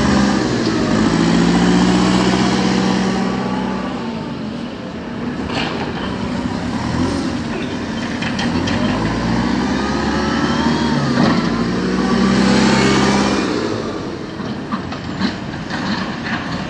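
JCB backhoe loader's diesel engine running and revving under load as the machine moves and works its bucket, swelling twice, with thin whining tones sliding up and down over it.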